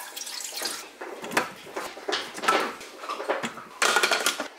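Kitchen handling clatter: water poured into a Thermomix mixing bowl at the start, then knocks and clatters as the bowl and its plastic lid are handled and fitted, loudest near the end.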